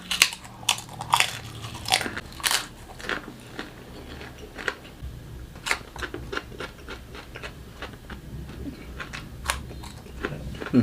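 A person chewing food close to the microphone: wet, crisp clicks and crunches, coming thick and fast for the first few seconds, then more spaced out.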